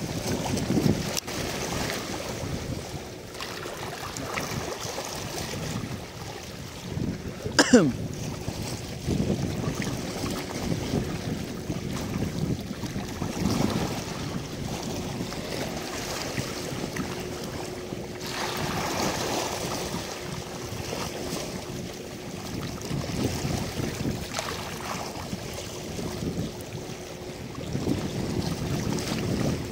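Wind buffeting the microphone over small waves washing against a rocky shore, swelling and easing every few seconds, with a faint steady hum underneath. About eight seconds in comes one brief sharp sweep that falls steeply in pitch.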